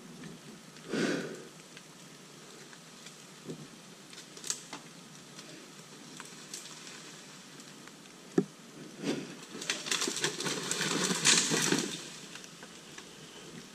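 Leaves and branches rustling and snapping in thick woodland brush, with a few sharp knocks. A louder, longer stretch of crackling and crashing through the brush comes about ten seconds in.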